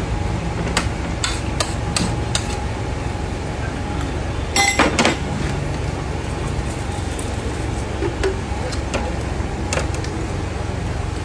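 Metal spoons clinking and scraping against plates while eating: scattered sharp clicks, with a quick cluster about four and a half seconds in, over a steady low background rumble.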